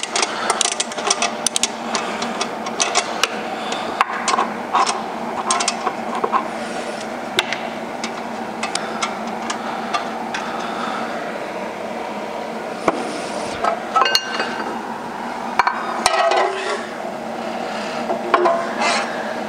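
Metal tools clinking and knocking against bolts and the flex plate while a wrench loosens the torque converter bolts, in short irregular clicks over a steady hum.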